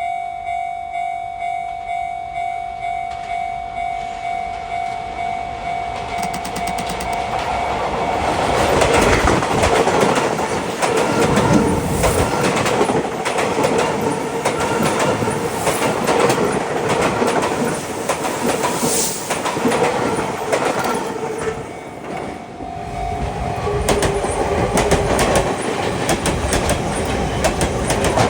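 Japanese level-crossing warning bell ringing in an even, rapid rhythm. About eight seconds in, a Sotetsu 8000 series commuter train passes loudly, its wheels clattering over the rail joints and drowning out the bell. The bell is heard ringing again near the end.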